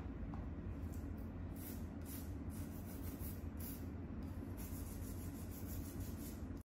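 Nail file rasping across fingernails in short, soft strokes, roughly one or two a second, during a manicure, over a steady low hum.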